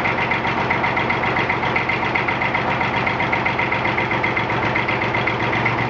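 The three-cylinder Perkins diesel of a 1959 Fordson Dexta tractor running steadily with an even, rapid firing beat, still cold just after a hard start.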